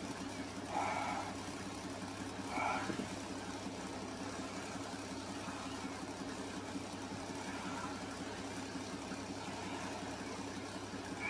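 Vehicle engine idling steadily, with two short voice-like sounds about one and nearly three seconds in.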